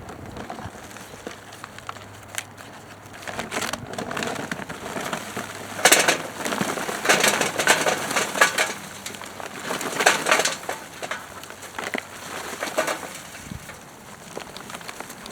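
Charcoal being poured from a bag into a grill: rattling and crunching in several bursts, the loudest near the middle.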